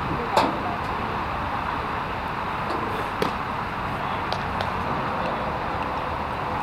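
Steady outdoor background noise with one sharp pop about half a second in from a pitched baseball, and a fainter click a little after three seconds.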